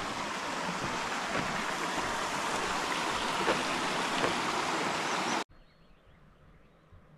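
Small rocky stream rushing over stones, a steady rush of water that cuts off abruptly about five seconds in, leaving near silence.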